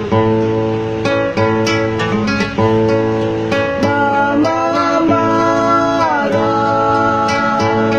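Minahasan kalelon folk song: acoustic guitar strumming steady chords, with a singing voice coming in about halfway through, bending in pitch and then holding a long note.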